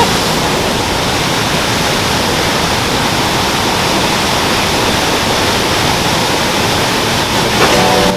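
Waterfall rushing loudly and steadily into a rainforest river pool. The river is running strong and high, with a heavy pushing flow.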